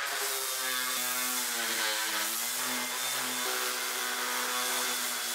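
Cordless random orbital sander running steadily against a board, a motor whine over sanding hiss, its pitch wavering slightly about two seconds in.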